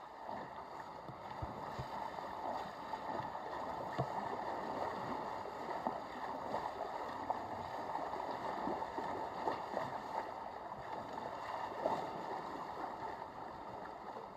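Water gurgling and splashing against a sailing boat's hull, a steady wash with many small splashes.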